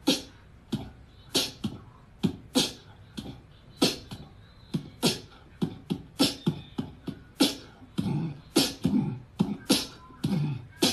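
Beatboxing-style percussive beat: sharp kick and snare-like hits, about two or three a second.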